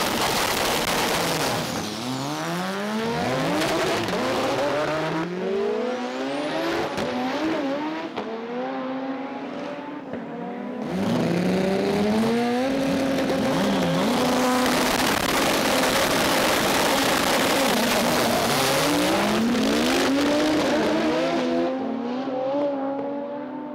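Honda drag-race cars' engines revving hard during burnouts and launch, with tyre squeal; the engine pitch climbs in repeated sweeps, and the sound falls away near the end as the cars run off down the track.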